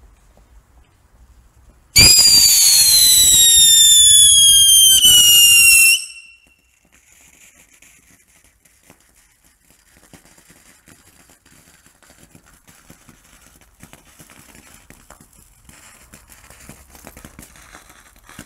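Borgonovo Fischio-luce pyrotechnic fountain: a loud, shrill whistle starts about two seconds in, slides slowly down in pitch and cuts off about four seconds later. The fountain then keeps spraying sparks with only a faint hiss and crackle.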